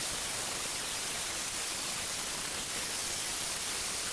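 Angle grinder with a flap sanding disc grinding paint off steel horseshoes: a steady, even hiss.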